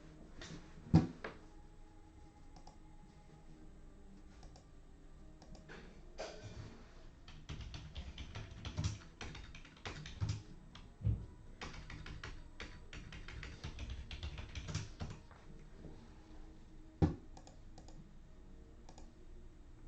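Typing on a computer keyboard: a run of quiet key clicks, with two louder knocks, one about a second in and one near the end.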